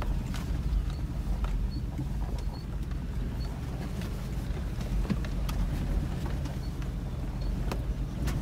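Cabin noise of a 4x4 driving slowly over a rutted, rocky dirt track: a steady low engine and tyre rumble with scattered sharp clicks and knocks as the vehicle jolts over the ruts.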